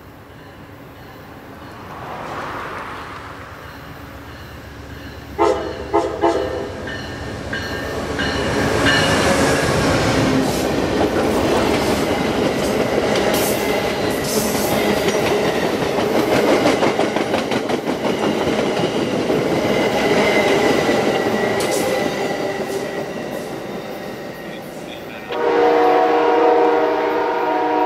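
Amtrak passenger train led by a GE P40 diesel locomotive going past on the rails: short horn blasts about five seconds in, then the rumble and clatter of the locomotive and stainless-steel cars rolling by, and a long horn blast near the end as the train moves off.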